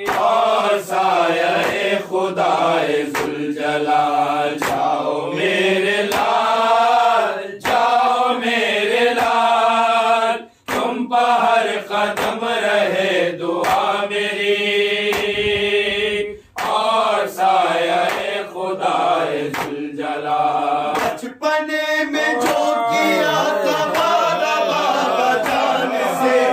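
Men's voices chanting a nauha, an Urdu Shia lament, in unison behind a lead reciter. A steady beat of open hands striking their chests (matam) runs under the chant. It breaks off briefly twice between lines.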